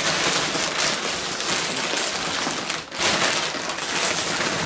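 Plastic bags and packing material crinkling and rustling as hands rummage through a cardboard shipping box, with a brief lull about three seconds in.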